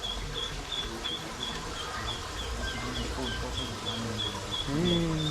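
Steady background chirping: short high chirps repeated evenly, about three a second, with faint voices near the end.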